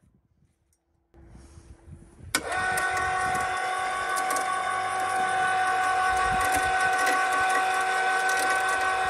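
The electric motor of a homemade water-well drilling rig switches on with a click about two and a half seconds in, then runs with a loud, steady high whine.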